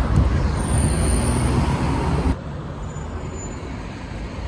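Street traffic noise from passing cars, loud for about two seconds, then cutting abruptly to quieter traffic sound.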